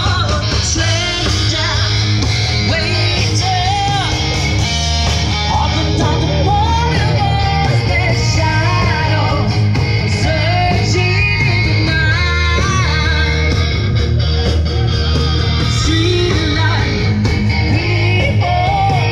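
Live rock band playing through stage speakers: a singer over electric guitar, drums and a heavy, steady bass.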